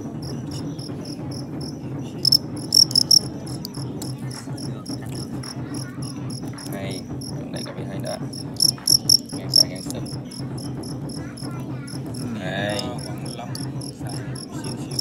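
Fighting crickets chirping: trains of short, high, evenly pulsed chirps, loudest in two clusters a couple of seconds in and again about halfway through, over a steady low hum.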